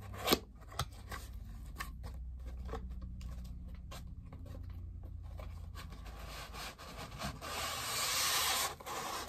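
A cardboard bobblehead box being handled and opened: light clicks and taps of the lid and flaps over a low steady hum. From about 7.5 s a louder scraping rustle follows as the packing is pulled out of the box.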